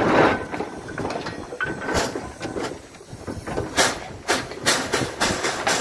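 Aveling & Porter steam road roller's engine working in steam: a hiss of steam at the start, then sharp exhaust beats that quicken to about three a second near the end.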